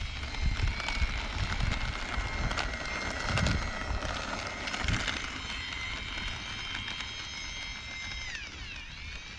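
Twin electric ducted fans of an E-flite A-10 RC jet whining steadily at high throttle on the runway; near the end the pitch dips and climbs back. Low gusty wind rumble on the microphone underneath.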